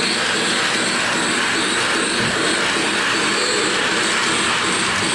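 Lionel Polar Express O-gauge battery train set running on its track at speed: steady motor and wheel noise with an even hiss.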